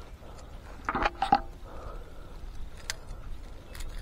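A short burst of clattering and scraping about a second in, from handling a just-caught bass and working the topwater lure out of its mouth.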